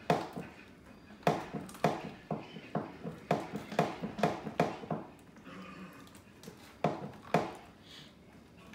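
A kitchen knife working a fish on a plastic cutting board: a run of sharp strokes about two a second, a pause of about two seconds, then two more strokes.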